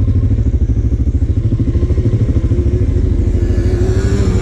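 CFMoto CForce 600 ATV's single-cylinder engine idling with a steady low pulsing close by. From about a second and a half in, a second quad's engine, a Yamaha Blaster two-stroke being ridden, runs at a higher pitch that wavers up and down.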